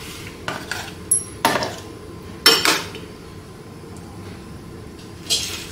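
Several light clinks and knocks of kitchen utensils against dishes, the sharpest about two and a half seconds in.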